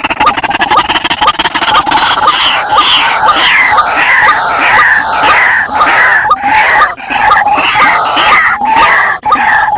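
White-breasted waterhen (ruak-ruak) lure call, loud: a rapid pulsing chatter that, about two seconds in, gives way to repeated curving calls at about two a second.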